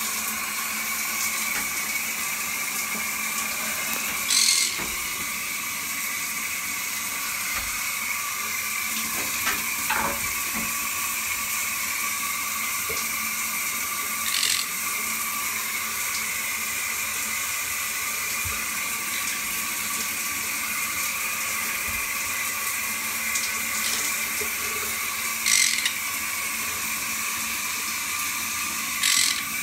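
Shower spray running steadily: a continuous hiss with a steady high whine in it. About four short, high-pitched sounds stand out above it at intervals.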